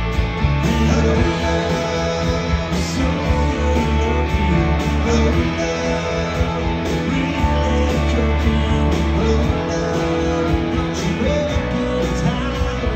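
Live rock band playing: guitars over a steady drum beat.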